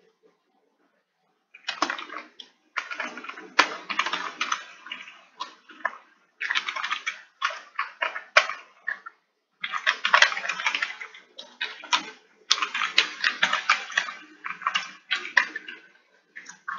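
Fast typing on a computer keyboard: rapid key clicks in several bursts with short pauses, starting about a second and a half in.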